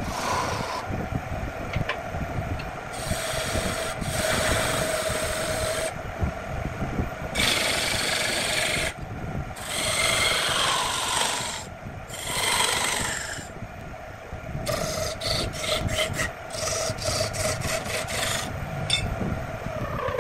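Electric wood lathe running with a steady hum while a hand-held turning chisel cuts the spinning wood. The cuts come as scraping, shaving passes a second or two long, then as a quick run of short strokes near the end.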